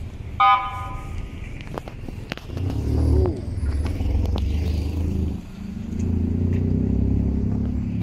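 Street traffic on a cobbled city street: car engines running and passing with a low rumble, and a short, loud, high beep about half a second in.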